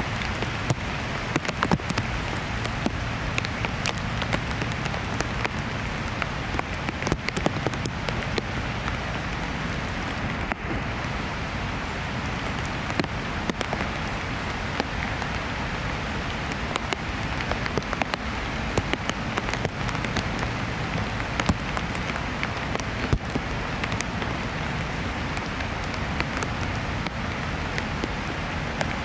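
Fairly heavy rain falling steadily, with frequent sharp raindrop taps close by.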